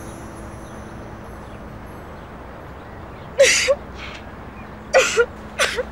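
A woman crying in short, gasping sobs: one about halfway through and two more close together near the end.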